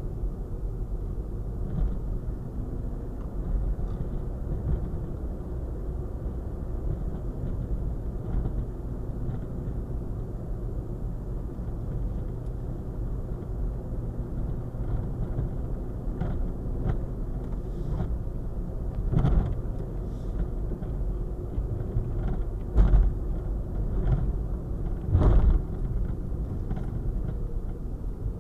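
Car driving on a rough road, heard from inside the cabin: a steady low rumble of engine and tyres, broken by three sharp jolts in the later part as the wheels hit bumps in the worn pavement.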